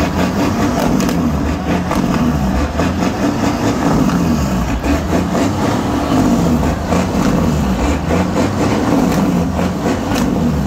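Semi truck's diesel engine revving with a loud, deep rumble through its exhaust stacks, pouring out thick smoke.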